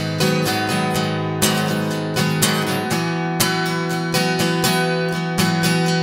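Instrumental music of a strummed acoustic guitar, chords struck at a steady, even pace.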